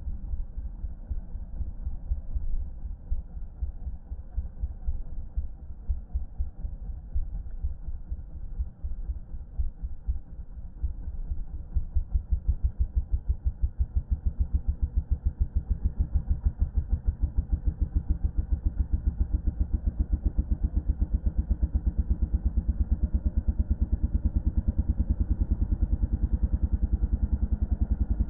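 Yamaha dirt bike's single-cylinder engine running at low revs with a pulsing beat as it rolls along; about twelve seconds in the beat grows louder and steadier as the throttle is held open.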